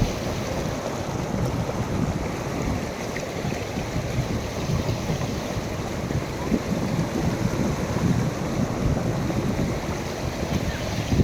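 Waterfall: a steady roar of falling water, with wind buffeting the microphone.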